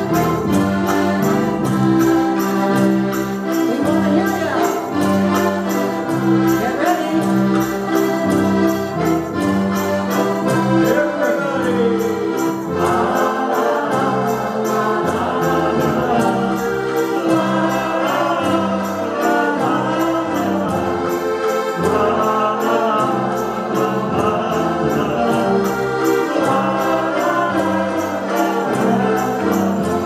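A group of diatonic button accordions playing a tune together in held chords over a steady beat, with a woman's voice singing along from about halfway in.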